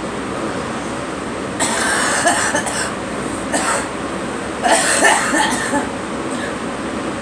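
A person coughing in three bouts: the first about one and a half seconds in, a short one in the middle, and the loudest near the end. A steady hum runs underneath.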